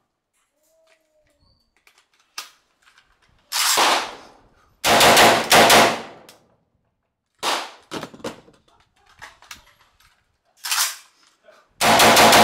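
Saiga AK-pattern rifle in 7.62×39 firing semi-automatic shots, fired quickly in strings of several shots, with single shots in between. Faint metallic clicks fall in the pauses between strings.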